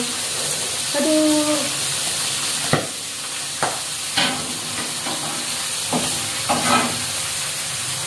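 Hot oil sizzling in a wok while a metal spatula stirs the food, with several sharp scrapes and clinks of the spatula against the pan.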